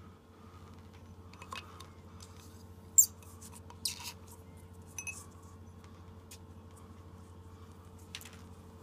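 Small clicks and clinks of a plastic dropper against a drinking glass, with brief handling rustles, over a steady low hum. The sharpest click comes about three seconds in, and one clink about five seconds in rings briefly.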